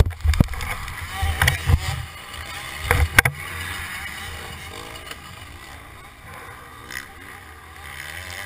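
Thumps and scrapes of a dirt-bike crash, heard from a helmet camera as rider and motorcycle tumble into brush. There are clusters of hits right at the start, about a second and a half in and about three seconds in, the last the loudest. Low wind and rustling follow.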